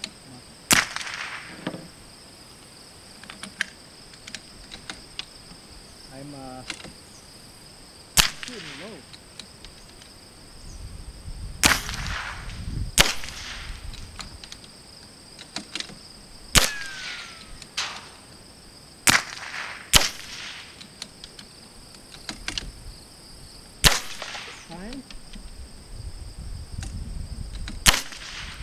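Two .22 LR bolt-action rifles, a Savage B22 Precision and a Vudoo V22, firing single shots: about nine sharp cracks at uneven gaps of one to four seconds. A steady high-pitched hum runs underneath.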